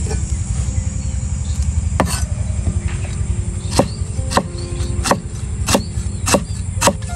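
Cleaver chopping lemongrass on a wooden chopping block: a single chop about two seconds in, then steady chops about every half second from about four seconds in, over a steady low rumble.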